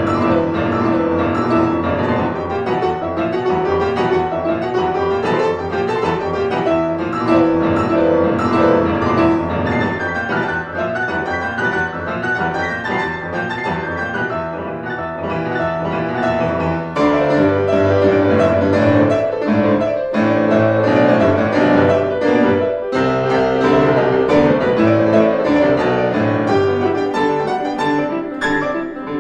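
Grand piano played four hands by two players at one keyboard: a classical duet in busy, quick-moving passages, growing fuller with more bass notes about halfway through.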